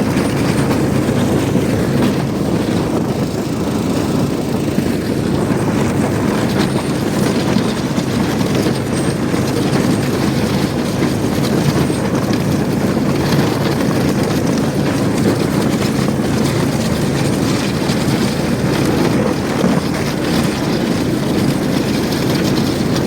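Snowmobile engine running steadily while riding under way.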